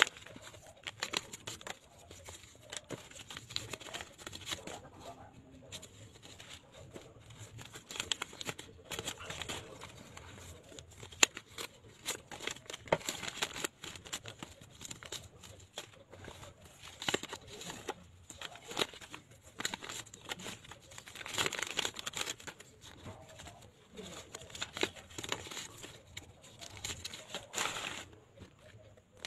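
Paper envelopes being torn open and crumpled, and paper banknotes rustling as they are pulled out and sorted: irregular crinkling and tearing, with one sharp snap about eleven seconds in.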